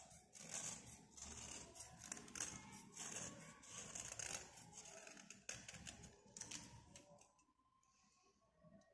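A metal blade scraping the surface of a slate pencil in quick, dry, scratchy strokes that stop about seven seconds in.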